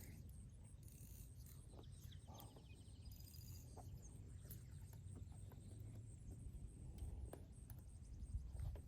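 Quiet outdoor ambience: a low steady rumble with a few faint clicks, and a brief faint bird chirp about three seconds in.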